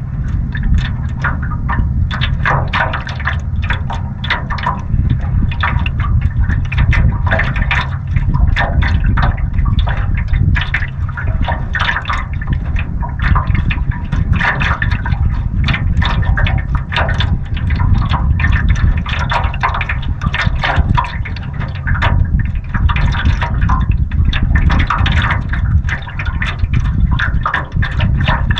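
Water lapping and splashing against a canoe's hull in choppy water, in many quick irregular slaps, over a steady low rumble of wind on the microphone.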